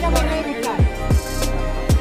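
Background music with a steady beat: bass kick drums that drop in pitch, sharp hi-hat ticks and a sustained bass line.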